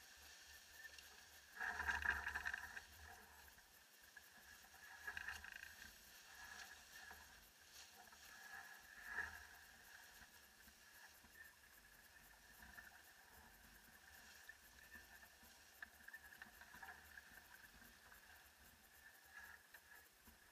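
Faint wash of water and wind aboard a sailing yacht under way, with a louder surge about two seconds in and smaller ones near five and nine seconds.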